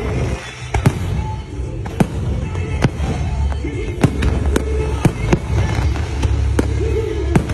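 Aerial fireworks display: a rapid, irregular string of sharp bangs from bursting shells, roughly two a second, over a continuous low rumble.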